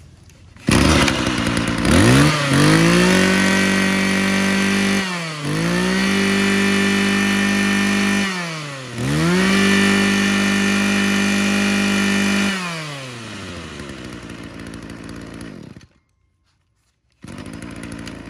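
Mitsubishi TBE24 24cc two-stroke brush cutter engine starting, then revved to full throttle three times, with the pitch sweeping down and back up between the runs. It falls back to idle and is switched off about 16 s in, and is heard idling again near the end.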